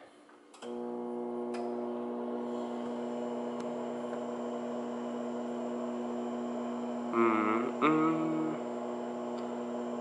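Microwave oven switching on with a click, then running with a steady electrical mains hum. A person's voice is heard briefly about seven seconds in.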